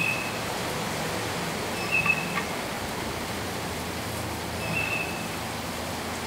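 Steady outdoor background hiss, with a short high chirp repeating every two to three seconds.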